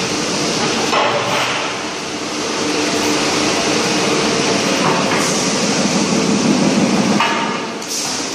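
Steel drum making machinery running: a steady machine hum with a few metallic clanks as a rolled steel drum body is handled and clamped into the seam welder.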